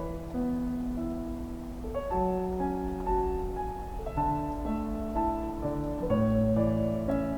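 Background piano music: slow melody of held notes over changing chords.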